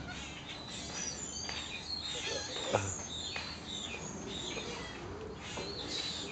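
Many short, high chirping calls and twitters, overlapping throughout, with one sharp click about three seconds in.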